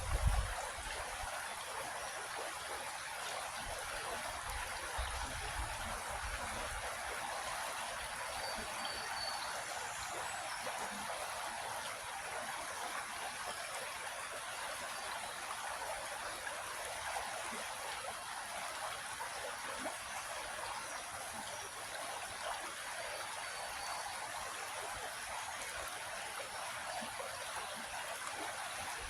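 Creek water flowing in a steady, even babble, with a brief low rumble at the very start.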